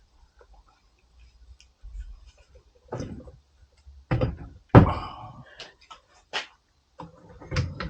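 Irregular knocks and clunks, as of parts or tools being handled and set down, the loudest nearly five seconds in, with a quicker run of knocks near the end.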